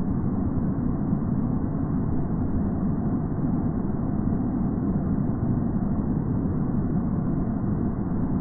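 Waterfall's falling water: a loud, steady, deep rushing noise that does not change.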